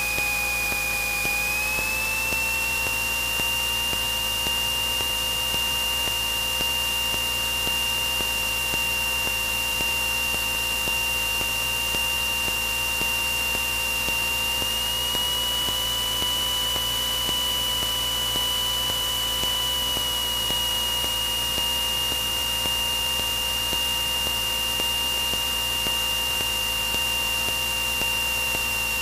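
Cabin noise of a Cessna 172N's four-cylinder Lycoming engine and propeller, running steadily under approach power with a constant rush of air. The pitch rises slightly about two seconds in and again around the middle, then eases back a little.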